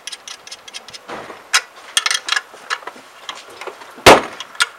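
Light metallic clicking and knocking as temporary nuts are run onto the footboard bolts with hand tools, with a sharp loud knock about four seconds in.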